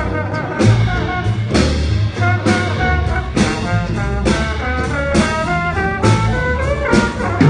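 Jazz ensemble playing live: brass and saxophone lines over bass and drums, with a steady beat of drum and cymbal hits.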